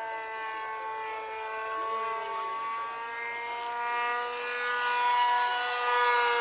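Electric RC model Cessna 182's brushless motor and propeller whining steadily in flight. The pitch drifts slightly up and down as the plane passes.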